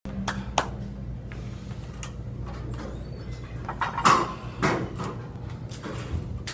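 Two sharp hand claps in the first second, then about four seconds in two metallic clanks as the Rolling Thunder grip handle is taken hold of on its plate-loaded pin, over a steady low hum.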